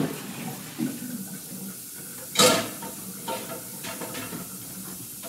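Dishes and pans being handled: a few light clinks and knocks and one loud clunk about two and a half seconds in, over a steady hiss.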